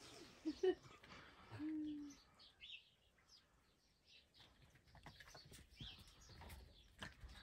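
Faint, scattered high animal chirps, with a short steady whine just under two seconds in.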